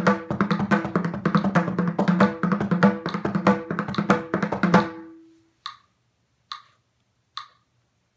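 Mridangam played in a fast run of crisp, ringing strokes that ends about five seconds in on a final stroke whose tone rings on and fades. After that only a steady ticking is left, a little over one tick a second, keeping the beat.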